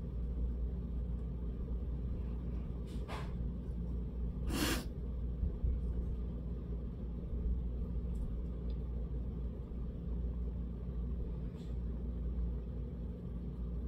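Steady low rumble of air from a fan, with a few short breathy sounds, the loudest about four and a half seconds in.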